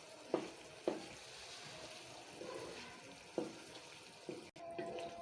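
Onion-tomato masala frying in a pot with a steady sizzle, and a spoon knocking against the pot four times as it is stirred.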